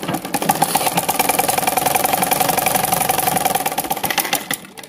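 Domestic sewing machine stitching fabric at speed: a steady, rapid clatter of needle strokes that slows and dies away near the end.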